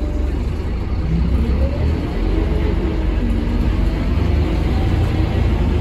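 Scania K230UB bus's rear-mounted Scania DC9 five-cylinder diesel heard from inside the passenger cabin: a heavy low rumble that grows louder and rises in pitch from about a second in as the bus accelerates.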